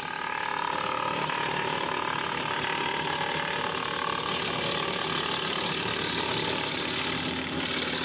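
Woodland Mills TF46 PRO PTO-driven wood chipper chipping cedar branches about 2.5 inches thick. It makes a steady, dense rattling clatter as the flywheel blades cut the wood and throw the chips out the discharge chute, over the hum of the machine running at speed.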